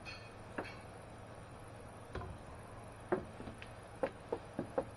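Scattered light taps and clicks from working boiled linseed oil into charred boards with a hand-held tub and applicator. A few come in quick succession near the end.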